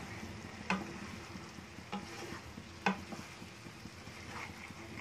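Wooden spatula stirring curry in a non-stick kadai: three short knocks of the spatula against the pan over a faint, steady sizzle of the curry cooking on a low flame.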